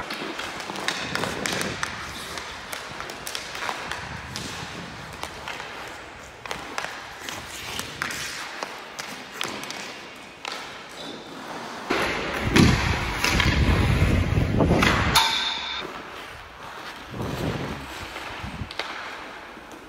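Ice hockey drill sounds echoing in an indoor rink: a stick tapping and knocking a puck, sharp thuds of shots, and skate blades scraping the ice. A louder stretch of scraping and low rumble runs for a few seconds past the middle.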